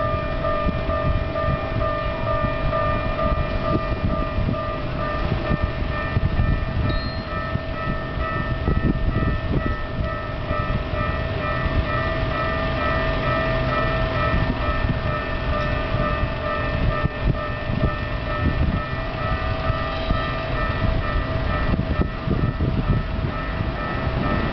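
Japanese railroad crossing warning bell ringing steadily in a quick, even repeat of metallic dings, over a continuous low rumble.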